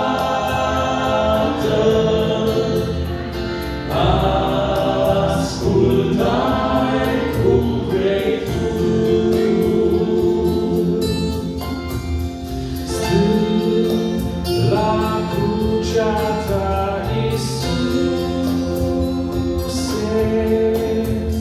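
Male vocal quartet singing a slow Romanian gospel song in harmony, with long held chords.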